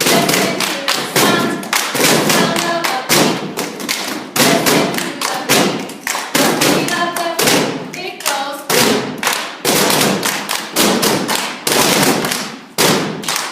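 A group stomping their feet and clapping in a rhythmic cheer, with voices joining in between the beats.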